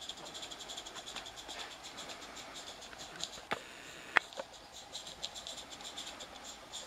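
Small live-steam garden locomotive with oscillating cylinders (IP Engineering 'Jane') running under steam: rapid, even exhaust beats over a light steam hiss. Two sharp clicks a little after the middle.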